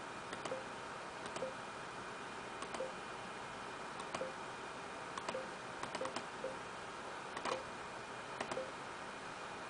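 Light clicks at irregular spacing, several in quick pairs, as the car PC's on-screen menu pages are clicked through, over a steady hiss of computer and room noise.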